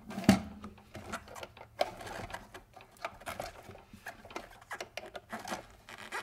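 Press-fit wheels being pushed onto the plastic gearmotor output shafts of a small robot rover, with the plastic chassis handled and set down on a wooden table. The result is an irregular string of clicks and knocks with some rubbing, the sharpest knock about a third of a second in.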